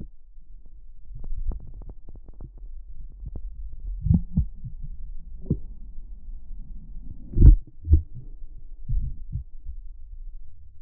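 Muffled underwater sound from a GoPro in its waterproof housing, submerged in creek current below a dam: a low rumble of moving water with scattered knocks and thumps. Two loud thumps come close together about two-thirds of the way through.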